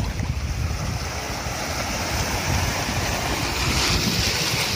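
Small waves breaking and washing through shallow surf, with wind rumbling on the microphone. The hiss of the wash swells near the end.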